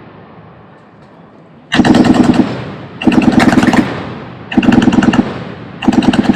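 Machine gun firing in four short bursts of rapid automatic fire, each under a second long, with echo trailing off between bursts.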